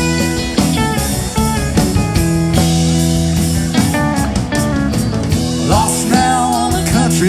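Live rock band playing: electric guitar over bass and drums, with a melodic line bending up in pitch about six seconds in.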